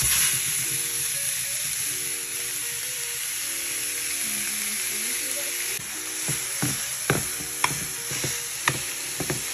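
Raw ground beef sizzling in a hot nonstick skillet, a steady frying hiss that starts suddenly as the meat goes into the pan. Several sharp knocks and clicks come in the last few seconds.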